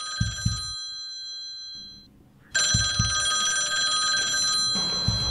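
Wall-mounted phone ringing: one ring dies away about two seconds in, and after a short pause a second ring sounds for about two seconds. A few low thuds are heard alongside.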